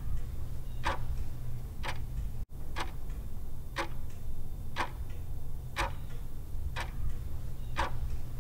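Clock-tick sound effect, one sharp tick a second in time with the flip clock's seconds digits turning over, above a steady low hum. The sound cuts out for an instant about two and a half seconds in.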